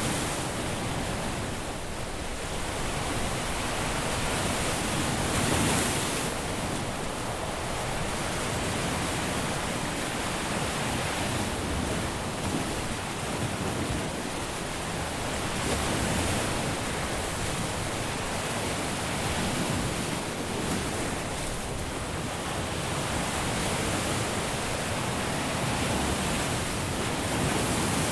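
Caribbean surf breaking and washing on a beach: a continuous rushing wash of waves, swelling a little louder every several seconds.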